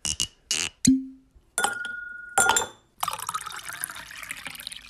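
Outro sound effects of glassware: a few quick strokes and a sharp knock, then two glass clinks that ring briefly, followed by liquid being poured, fading toward the end.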